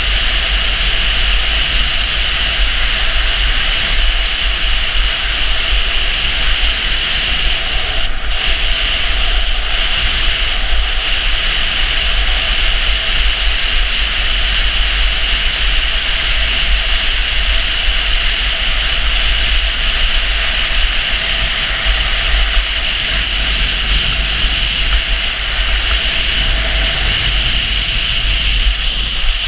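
Steady rushing of wind over a skier-carried action camera's microphone during a fast downhill run, with the hiss of skis on groomed snow and a deep buffeting rumble underneath.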